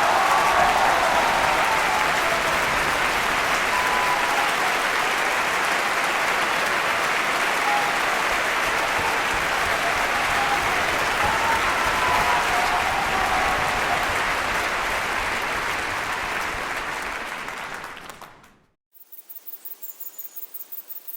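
Large indoor crowd applauding and cheering, fading out about eighteen seconds in. A faint, quick, regular ticking follows near the end.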